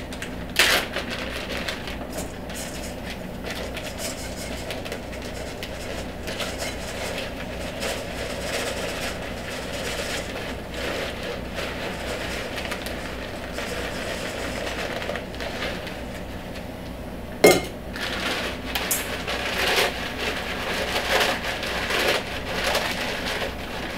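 Dehydrated spaghetti being crushed by hand in a bowl: dry pieces crunching and rattling against the bowl over a steady low hum. There are two sharp knocks, one right at the start and one about 17 seconds in, and the rustling grows louder and more uneven near the end.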